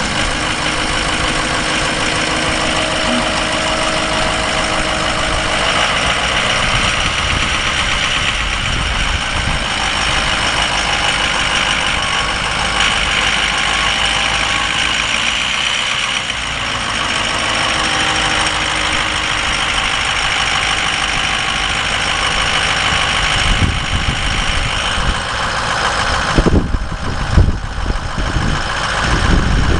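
Ford F550 Super Duty's 6.0L V8 diesel engine idling steadily, with some uneven low buffeting in the last few seconds.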